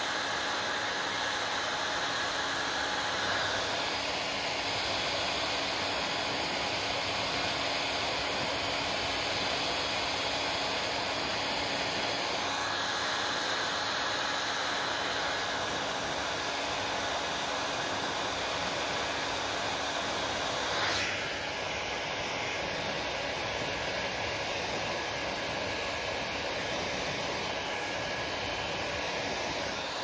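Hand-held hair dryer blowing steadily, a rushing air noise whose tone shifts a few times. A brief click about two-thirds through, after which it runs a little quieter.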